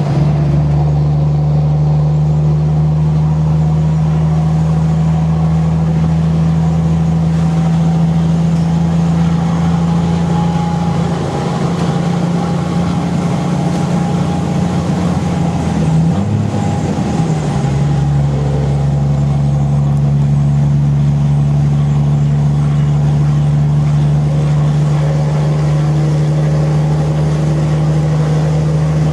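Volvo FH12 truck's inline-six diesel running under way through an open exhaust, a loud, steady drone. About 16 seconds in, the engine note briefly wavers and then settles slightly lower.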